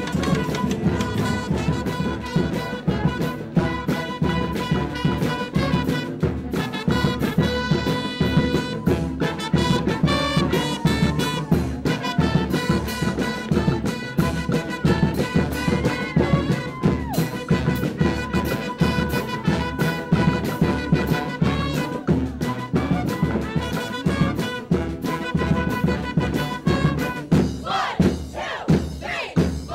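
Brass band music: trumpets and trombones playing over a steady beat.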